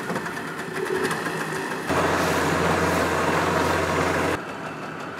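A small motorboat's engine running steadily. It gets suddenly louder, with a strong low drone and a rush of noise, about two seconds in, and drops back abruptly shortly before the end.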